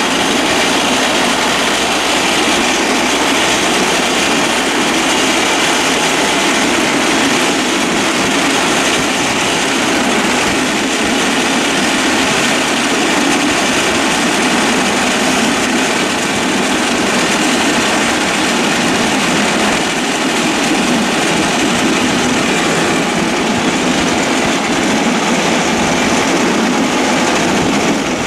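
Home-built draisine running along a metre-gauge railway track: a steady, loud running noise of the vehicle and its wheels on the rails, unchanging throughout.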